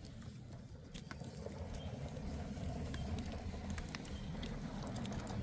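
A stiff brush rubbing through a goat's coat: a steady scratchy rustle with scattered light clicks, over a low rumble.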